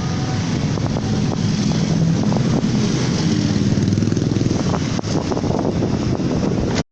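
Vehicle engine running steadily on the move, with wind buffeting the microphone; the sound cuts off abruptly near the end.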